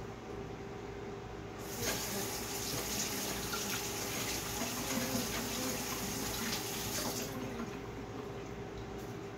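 Water tap running into a sink while hands are washed under it, turned on about two seconds in and shut off a little over five seconds later.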